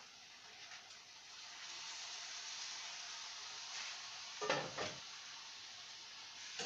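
Food frying in a pan on a gas stove: a steady sizzle that swells about a second in, after the lid comes off, with two short clatters about four and a half seconds in.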